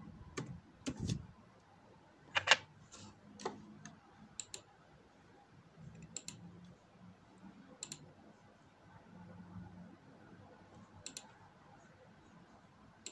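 Single sharp clicks at uneven gaps of one to three seconds, the loudest about two and a half seconds in, from a laptop being operated by hand.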